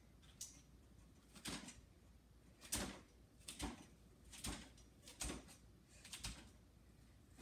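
A child hopping on one foot along a low floor balance beam: six soft thuds, a little under one a second.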